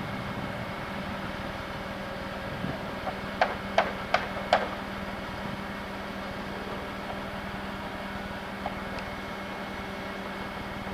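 Four quick hammer blows, about three and a half seconds in, over a steady engine hum.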